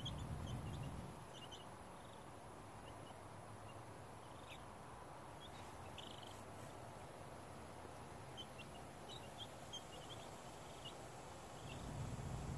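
Faint, scattered short peeps from two-week-old White Leghorn chicks dust-bathing, with a low rumble at the start and again near the end.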